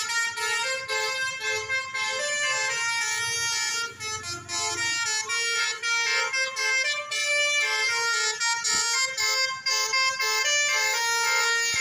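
Bus 'telolet' horn, a multi-tone horn playing a quick melody of short notes, with a brief break about four seconds in.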